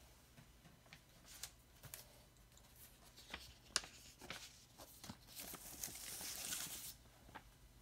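Paper record sleeve being handled against the cardboard album jacket: a few light taps and scrapes, then a longer papery rustle for about a second and a half near the end, as the sleeve slides.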